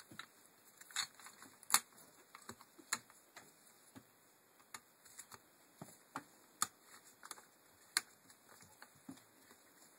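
Irregular clicks and taps of plastic and metal parts as a Land Rover Freelander rear window regulator is handled and assembled, its cable drum housing and cables being fitted onto the regulator plate. A few sharper clicks stand out, the loudest just under two seconds in and again about eight seconds in.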